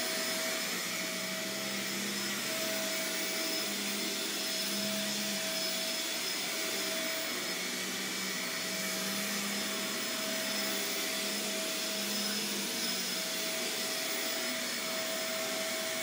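Shark Navigator upright vacuum cleaner running steadily while it is pushed back and forth over carpet: a constant rush of motor and airflow with a steady hum.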